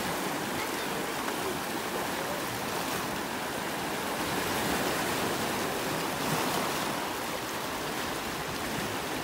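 Sea water: a steady wash of waves and splashing.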